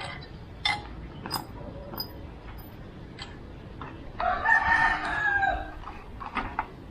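A rooster crowing once, a single long call of about a second and a half midway through. A few light metallic clinks of small parts being handled are heard before and after it.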